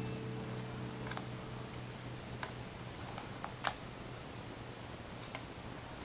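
A few separate soft clicks and taps of stiff cardboard board-book pages being flipped and set down, the loudest about three and a half seconds in. A held musical tone fades away in the first two seconds.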